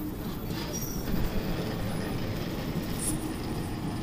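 Rail vehicle rumbling along its track, with a short high squeal just under a second in.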